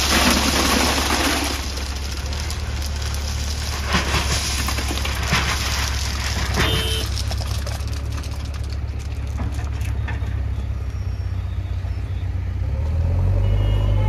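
Heavy diesel engine running steadily, with a rushing noise in the first second or so, a few short knocks in the middle, and the engine getting louder near the end.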